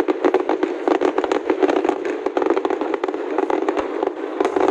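Aerial fireworks bursting in a dense, continuous crackle of rapid pops, many per second, with no single boom standing far above the rest.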